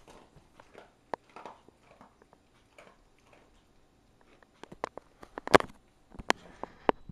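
A dog eating dry kibble from a plastic bowl while lying down: scattered crunches and clicks, sparse at first, then louder and more frequent over the last couple of seconds.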